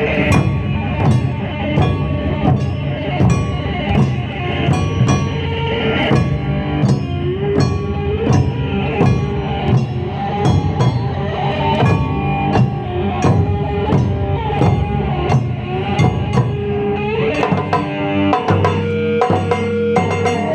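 Live Japanese taiko drum ensemble playing a driving beat of about two strikes a second, with a melody line over the drums.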